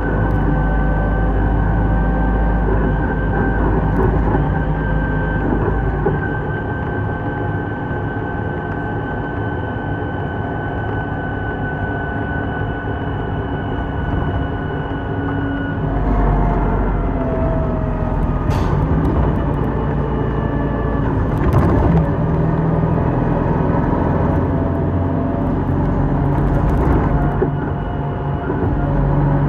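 Inside a moving city bus: the steady drone of the bus's engine and road noise, with a held whining tone. About halfway through, the engine note changes, followed by a couple of sharp knocks or rattles.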